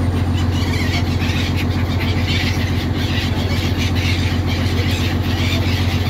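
A boat's engine running steadily with a low, rapidly pulsing hum. Scattered high squeals over it, likely from the gulls.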